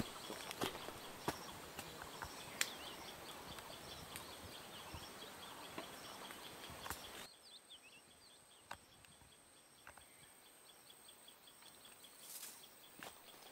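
Faint outdoor ambience in a dry bamboo thicket: a high chirping repeated several times a second, with scattered sharp clicks and snaps, most of them in the first half. The background hiss drops suddenly about halfway through.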